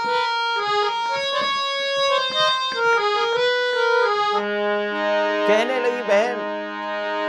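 Hand-pumped harmonium playing a quick melodic interlude of single notes, then settling onto a held chord about four seconds in. A man's singing voice comes in over the held chord near the end.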